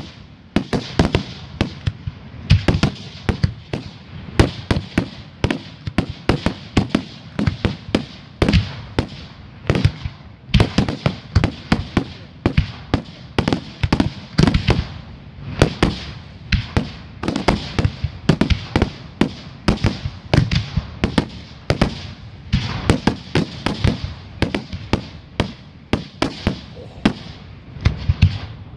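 Aerial firework shells bursting one after another in a quick, unbroken run of sharp bangs, a few each second.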